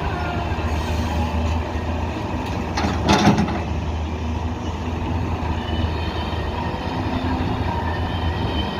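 Diesel engine of an excavator or backhoe running with a steady low rumble. About three seconds in there is a brief, louder noisy burst, such as a clatter or scrape.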